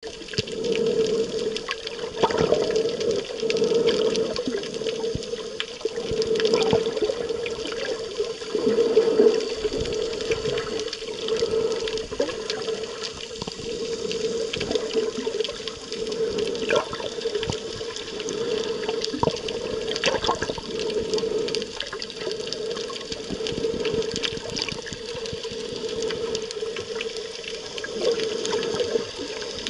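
Underwater sound through a camera's waterproof housing: a muffled, rushing wash of water with scattered sharp clicks and crackles, and a drone that swells and fades about every two seconds.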